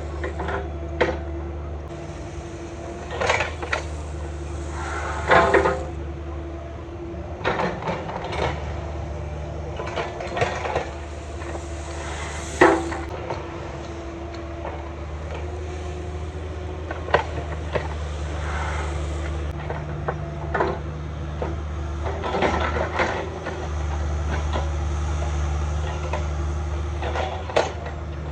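Cat 305 mini excavator's diesel engine running steadily while the machine works, with irregular clanks, knocks and scrapes from the bucket moving dirt and gravel, a dozen or so sharp hits spread through.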